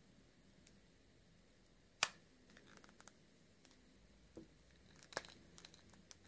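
Handling noise of a Lenovo S580 smartphone: one sharp click about two seconds in, the loudest sound, then scattered light clicks and taps.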